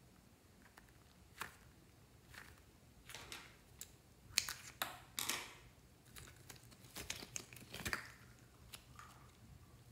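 Scissors snipping into the rubber skin of a squishy toy: a run of short snips and crinkly tearing sounds, loudest about halfway through, thinning out near the end.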